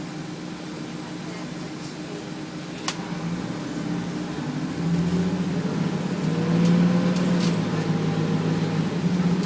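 Detroit Diesel Series 40 inline-six diesel of a Nova Bus LFS city bus heard from inside the cabin: a steady hum that grows louder about halfway through as the bus pulls away and gains speed. A single sharp click about three seconds in.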